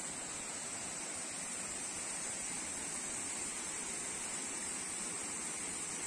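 Waterfall rushing: a steady, even sound of falling water with a steady high hiss over it.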